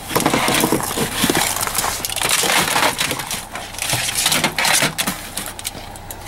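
Discarded computer gear being handled and shifted about: an irregular run of plastic and metal knocks, scrapes and crunching rustles.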